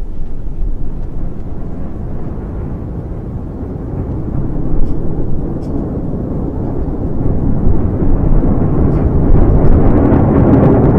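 Falcon 9 rocket's first stage, nine Merlin 1D engines, thundering during ascent shortly after liftoff: a deep, rough rumble that swells louder over the last few seconds.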